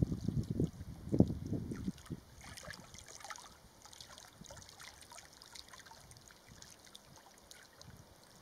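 Wind buffeting the microphone in low gusty rumbles for about two seconds, then dying down to faint outdoor background with scattered faint high ticks and chirps.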